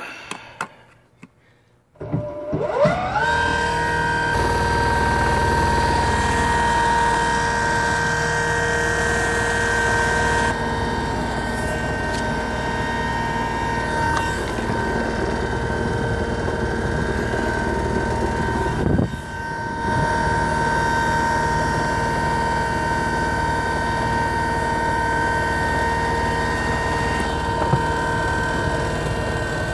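Motenergy brushless DC boat motor, run from a square-wave controller, spinning up about two seconds in with a whine that rises in pitch, then running under power with a steady high whine. About two-thirds of the way through the whine briefly drops in pitch and comes back up.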